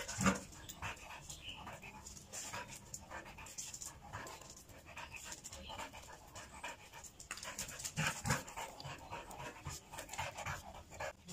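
Dog panting hard in quick, rapid breaths while playing, with a couple of louder knocks, one just after the start and one about eight seconds in.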